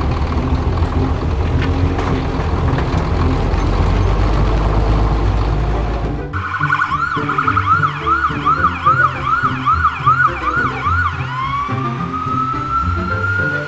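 Background music with a low rumble for about six seconds, then a siren starts: a fast up-and-down yelp about twice a second, changing near the end to a slow rising wail.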